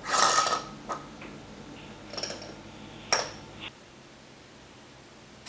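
Metal screw lid of a glass jar of instant yeast being twisted off: a short scraping clatter with a ringing note, then two sharp, high clinks about a second apart as metal taps the glass.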